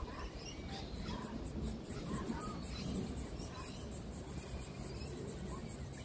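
Outdoor ambience of faint scattered bird chirps over a rapid, even high-pitched insect pulsing, with a low rumble underneath.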